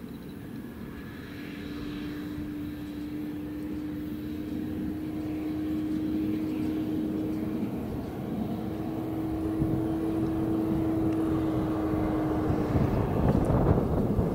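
Fendt 718 tractor towing a Lely D6060 round baler, approaching on a gravel track and growing steadily louder, with a steady whine over the engine drone that stops near the end as the noise of the machine turns rougher and louder close by.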